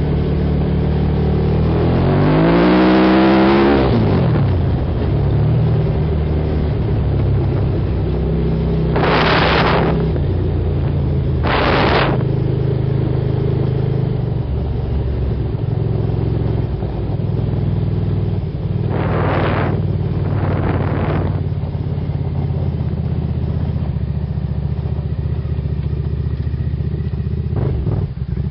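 Suzuki SV1000 V-twin engine of an off-road buggy under way, heard from on board. It revs up a few seconds in, then runs at a steady pace. Several brief rushes of noise break over it.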